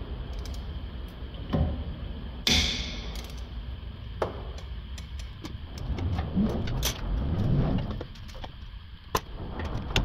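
Hand ratchet and socket clicking on a front-suspension bolt, with metal tools clinking and knocking against the suspension parts, over a steady low rumble. A short hiss-like burst comes about two and a half seconds in.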